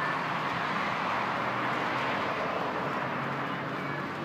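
Steady outdoor traffic noise, an even hum with no distinct events.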